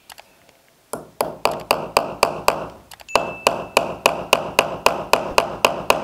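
A hammer driving a steel nail into a plastered wall: quick, even blows at about four a second, each with a short metallic ring. They start about a second in and pause briefly near the middle.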